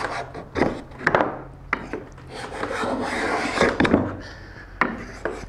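Veritas cabinet scraper pushed across a board in repeated strokes: the blade rasps along the wood as it lifts thin shavings. A few sharp knocks come between the strokes.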